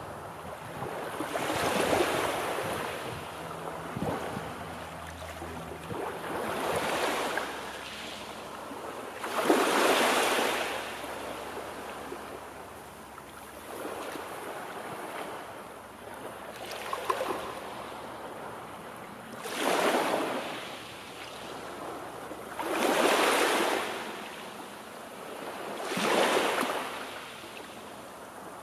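Gentle sea surf: small waves breaking and washing in, each a swell of rushing noise that rises and falls away, coming every three to four seconds.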